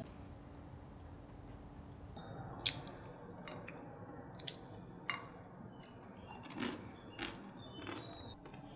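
Quiet eating sounds at a table: people chewing food eaten by hand, with a handful of sharp clicks and taps from plates and glasses.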